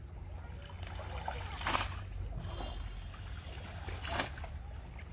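Water splashing and sloshing as a person wades waist-deep and handles a fishing net through water hyacinth, with two louder splashes about two and four seconds in.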